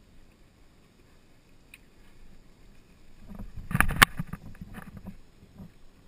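Two sharp cracks of a polo mallet about a quarter second apart, a little past halfway, over the low thudding of horses' hooves on turf.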